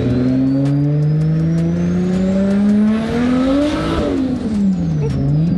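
Nissan Skyline R32 GT-R's RB26 inline-six with a big T51R single turbo accelerating hard, engine pitch climbing for about four seconds with a rising turbo whistle. Then the throttle lifts with a rush of hiss, and the revs and whistle fall before the engine settles again near the end.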